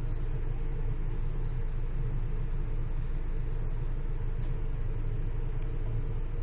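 Steady low rumble of a research ship's engines and onboard machinery, even throughout with no distinct events.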